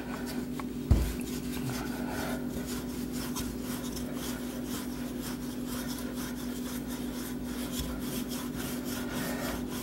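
Wooden rolling pin rolling back and forth over floured puff pastry dough on a wooden table, a soft repeated rubbing, with a knock about a second in. A steady low hum runs underneath.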